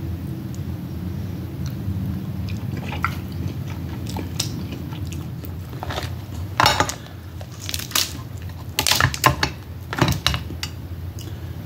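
Close-miked eating of snow crab and Dungeness crab: chewing and biting with scattered sharp crunches and cracks, the loudest about six and a half seconds in and in a cluster around nine to ten seconds. A steady low hum runs underneath.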